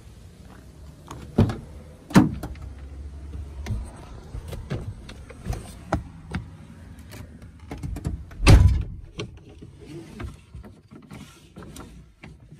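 Toyota Tundra pickup's door opening with a couple of knocks, scattered clicks and knocks as someone climbs into the cab, then the door shutting with a heavy thud about eight and a half seconds in.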